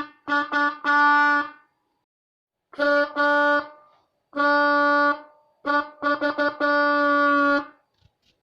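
Harmonica chords blown in short toots and longer holds to mimic a car horn: quick double and triple toots, each group ending in a held blast, with sudden silence between the groups.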